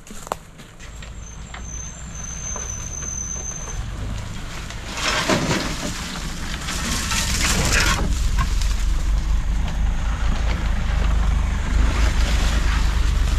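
Off-road vehicle engine running as it drives off, its low rumble growing louder, with a loud rushing, rattling burst from about five to eight seconds in.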